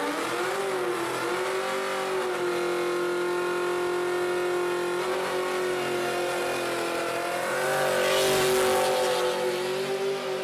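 Car engine held at high revs during a burnout, one steady high note throughout. A hiss of spinning tyres grows louder for a second or so about eight seconds in.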